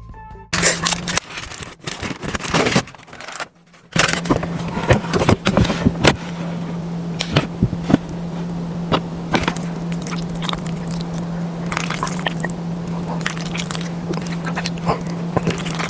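Metal fork scraping and scooping through cheesy macaroni and cheese in an aluminium foil tray, with many quick sticky clicks and squelches, over a steady low hum.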